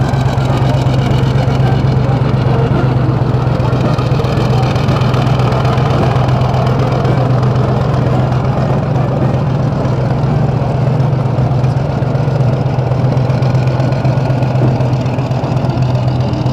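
Tracked tank's diesel engine running with a loud, steady low hum as the tank moves slowly past close by.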